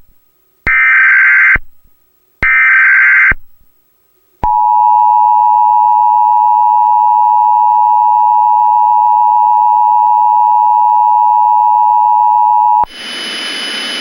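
Emergency Alert System header: two one-second bursts of screeching SAME data tones, then the EAS two-tone attention signal (853 and 960 Hz together) sounding steadily for about eight and a half seconds. The tone cuts off into a burst of hiss near the end.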